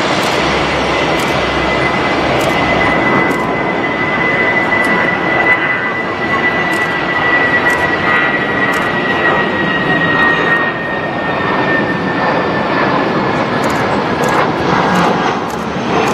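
Jet airliner engines running: a loud, steady roar with a high whine that slowly falls in pitch.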